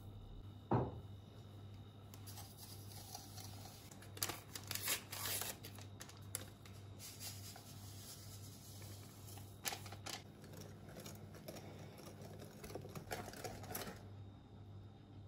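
A thump about a second in, then a wire whisk beating egg yolks and sugar in a glass bowl: quick scratchy strokes with sharper clicks against the glass, stopping near the end.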